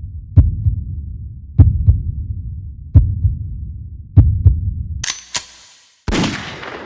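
Heartbeat sound effect: deep double thumps, lub-dub, about once every 1.2 seconds. Near the end it breaks off into a short hissing burst, then a sharp crash that fades out.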